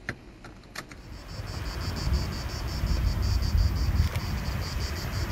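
A couple of faint clicks, then from about a second in wind rumbling on the phone's microphone, with insects chirping in a fast, even pulse, several times a second, above it.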